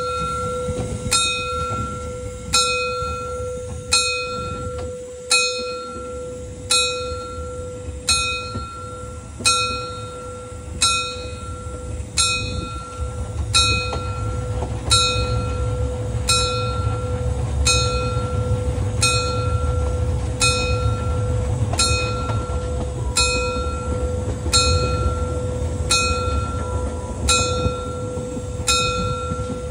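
A large bell ringing steadily, struck about every second and a half, its tone ringing on between strikes, over a low rumble that grows stronger about halfway through.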